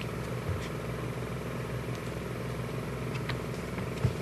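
Steady low mechanical hum, with a few faint clicks and a soft thump near the end.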